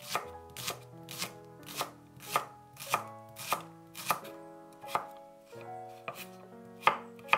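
Chef's knife slicing shallots on a wooden cutting board, the blade knocking on the board in an even rhythm of about two cuts a second. Soft background music with held notes plays underneath.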